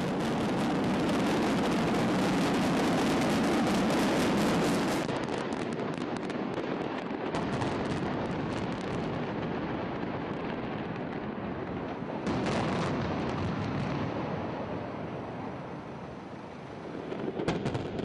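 Many demolition charges bringing down an elevated road viaduct, firing in quick succession as a dense crackle. It is loudest for the first five seconds, then eases off, with fresh bursts about twelve seconds in and again near the end.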